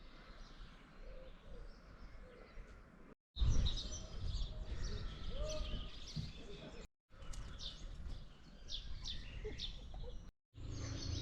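Small birds chirping and calling over a low, steady outdoor rumble, in three short stretches broken by sudden brief silences.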